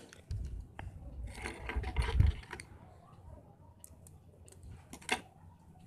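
Close handling noise of small electronic parts: fingers working a small pouch battery, its wires and a circuit board, giving scattered clicks and rustles over a low rumble in the first two seconds, then a single sharp click about five seconds in.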